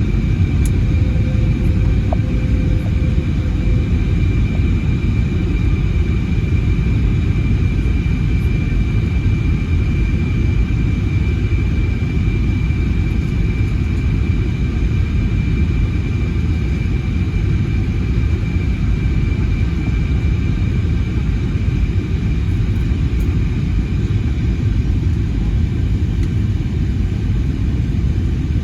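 Airbus A320neo cabin noise: a steady, loud low rumble from the airliner in flight, with a steady high whine that fades in the second half.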